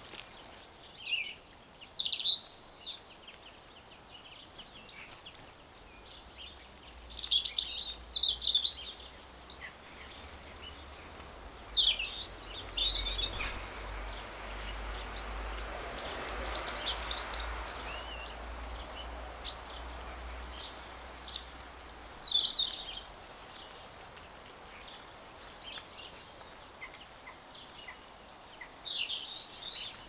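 Small garden birds chirping and calling in short, high-pitched bursts that come every few seconds.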